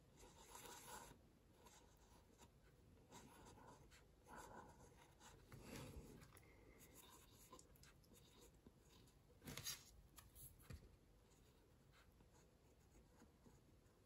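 Faint scratching of a pen nib on watercolour paper as small lines are drawn in short strokes, one a little louder about nine and a half seconds in.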